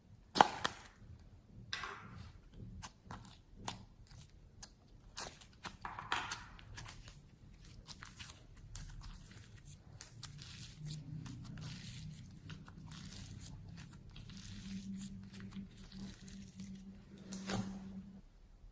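Slime being handled: squished, stretched and pulled apart by hand, giving a run of sticky crackles, pops and tearing snaps, with one sharp snap about half a second in and a denser crackling in the second half.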